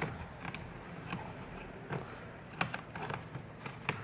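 Removable battery pack of a Lenovo Z50 laptop being fitted back into its bay: a scatter of short plastic clicks and knocks at irregular intervals.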